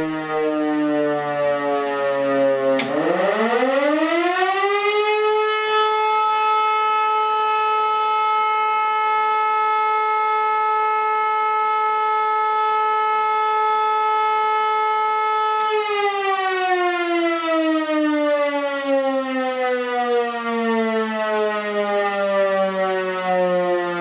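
Siemens E57 motor siren, driven by a 5 kW three-phase motor. It is winding down with a falling tone, then is switched on again about three seconds in. It spins up quickly to a steady high tone, holds it for about ten seconds, then winds down slowly with a falling tone.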